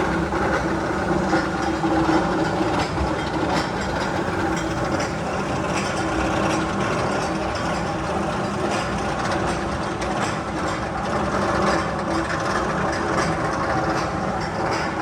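Steady mechanical rattling and clatter with a constant low hum underneath, like a train running on rails.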